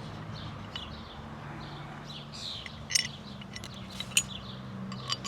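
Small birds chirping and twittering in quick short calls, with a few sharp clicks about three seconds in, just after four seconds, and at the end.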